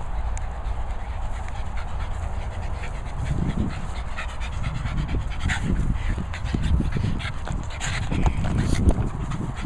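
Small pug-cross dogs panting with quick, repeated breaths, louder and closer near the end as one comes right up to the microphone, over a steady low rumble.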